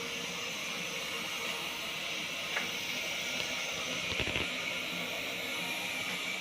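Steady airy hiss, with a faint click about two and a half seconds in and a short cluster of knocks around four seconds.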